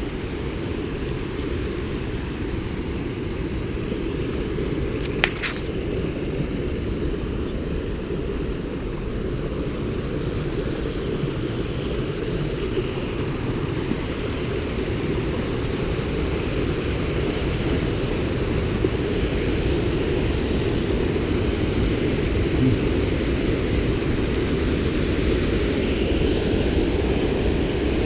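Waterfall and rapids rushing over rocks, a steady deep roar that grows a little louder near the end. A single sharp click about five seconds in.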